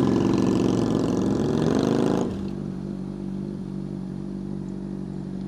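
Motorcycle engine running under way, then dropping abruptly to a steady idle about two seconds in as the bike pulls over and stops.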